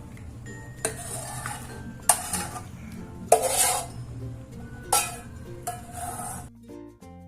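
Metal pot and utensil knocking and scraping against the rim of a drinking vessel, about six clinks, the loudest a little over three seconds in, as hot ginger water is poured out of the pot.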